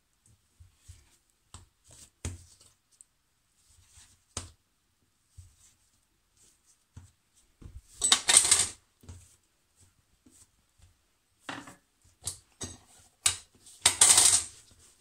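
Large kitchen knife cutting soft dough on a tiled countertop, its blade tapping and scraping the tiles with scattered soft clicks. Two louder metallic clatters, about eight and fourteen seconds in, as the knife is set down and picked up on the counter.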